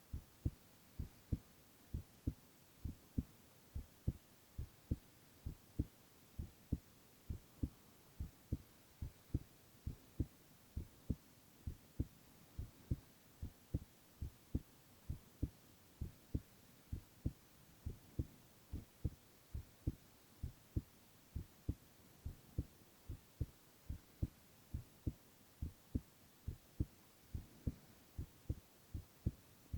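A young man's heartbeat heard close up: a steady rhythm of paired low lub-dub thumps, about one beat a second.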